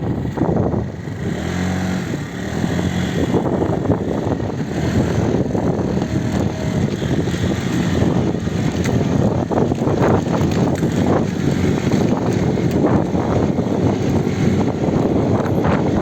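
A child's ATV engine running steadily through a rough, noisy rush of sound.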